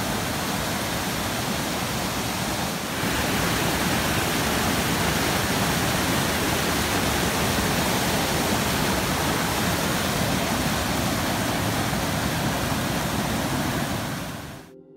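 Creek water rushing down a small rocky waterfall, a steady loud rush of whitewater. It gets a little louder about three seconds in and fades out just before the end.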